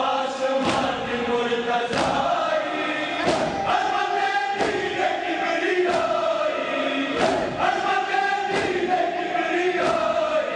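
A crowd of men chanting a Muharram noha (lament) in unison during matam, with loud synchronized chest-beating slaps landing together roughly every second and a third.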